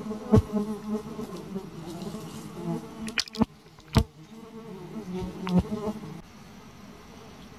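Flies buzzing close to the microphone, a droning hum that rises and falls in pitch and loudness as they pass, fading out about six seconds in. A few sharp clicks sound over it, the loudest about four seconds in.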